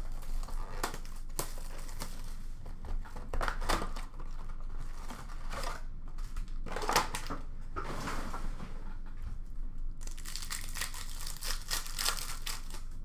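Foil wrappers of Upper Deck hockey card packs crinkling and tearing as a blaster box is emptied and the packs ripped open, in irregular crackles that grow dense and continuous near the end.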